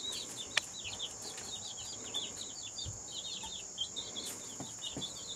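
A brood of baby chicks peeping continually, many short falling peeps overlapping one another, over a steady high-pitched tone.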